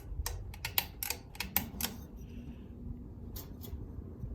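Ceiling fan running with a steady low rumble of motor and moving air, overlaid by a quick run of light clicks in the first two seconds and two more near the end.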